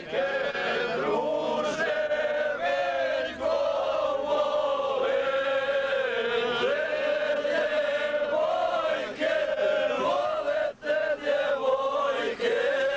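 Group of men singing together in long held notes.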